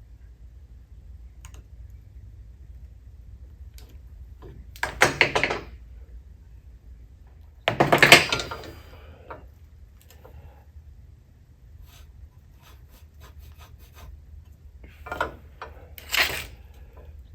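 A few short bursts of scraping and rubbing, the loudest about eight seconds in, between scattered faint clicks over a low hum.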